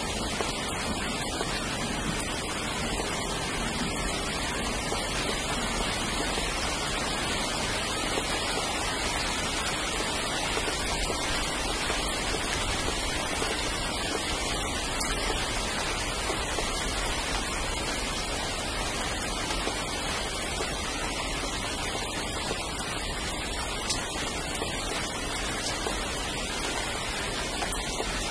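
Steady rain falling, with a few sharper drip ticks now and then.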